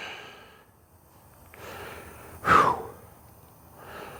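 A man breathing out hard, a loud, short, sighing exhale about two and a half seconds in, after a softer breath.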